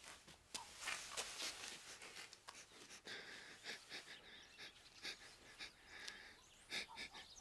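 A girl crying quietly, in uneven breathy sobs and sniffs.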